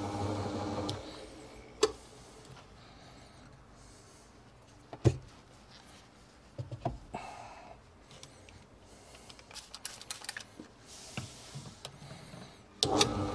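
Bowling ball spinner running with a steady hum, switched off about a second in. Then scattered handling clicks and knocks, the sharpest about five seconds in, before the spinner starts up again near the end.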